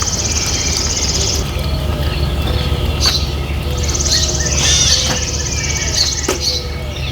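Birds chirping, with a buzzy high trill heard twice, over a steady low rumble. A few sharp knocks sound between the calls.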